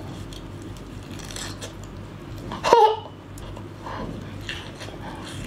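Close-up eating sounds of a person biting into a cooked shrimp in its shell: small shell crackles and clicks, with one loud, short sucking sound about halfway through.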